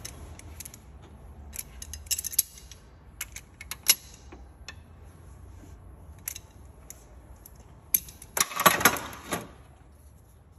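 Breaker bar and socket on the cylinder-head bolts of a 1.8 F18D4 engine, turning them through the 90-degree torque-angle stage: scattered sharp metal clicks and clinks as the socket goes onto and off the bolts, then a louder rasping sound lasting about a second near the end as a bolt is turned. Insects buzz steadily high in the background.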